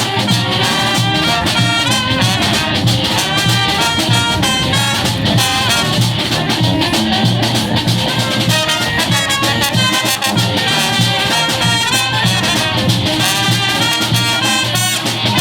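Brass band playing an upbeat tune, horns over a steady drum beat.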